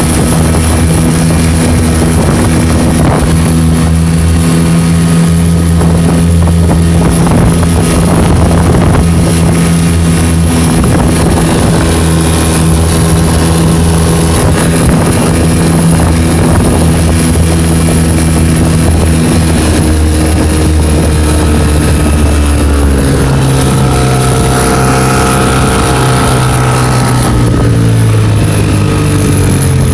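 Tohatsu 5 hp two-stroke outboard motor running under load while planing, with the buzzing rattle that only shows under load and whose cause the owner has not found. The engine note is steady for most of the time, then drops about two-thirds of the way through and climbs again near the end.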